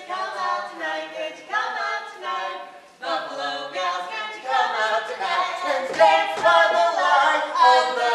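A choir singing without accompaniment, in sustained phrases, with a short lull about three seconds in before the voices come back louder.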